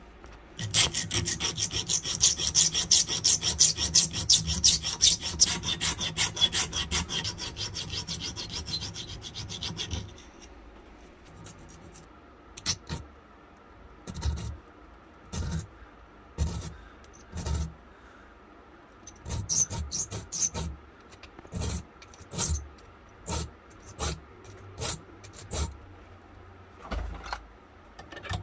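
Hand rubbing or filing strokes on small parts of an antique flintlock pistol being cleaned: fast, rapid back-and-forth strokes for about the first ten seconds, then slower, separate strokes about one a second.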